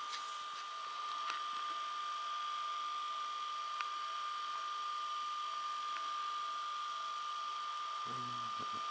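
Open VHS deck of a Philips DVD755VR DVD/VCR combo running in play: a steady mechanical whir with a constant high whine and a few faint ticks.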